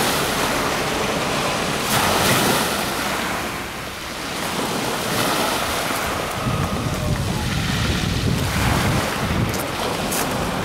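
Wind buffeting the microphone over small waves washing in, the rush swelling about two seconds in and again near the end.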